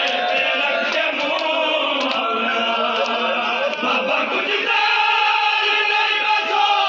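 Men's voices chanting a noha, a Shia lament, together in a mourning chorus, with faint slaps of hands beating chests in matam. About two-thirds of the way through, the chant moves into a higher, more sustained line.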